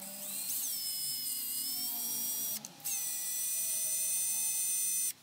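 Makita cordless drill running a small bit into an aluminium heatsink block. It gives a steady high-pitched motor whine that spins up at the start, stops briefly about two and a half seconds in, runs again, and cuts off near the end.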